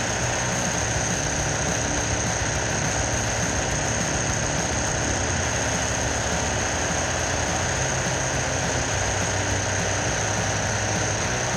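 Chainsaw engine running steadily at high speed, an even, unbroken drone with no let-up.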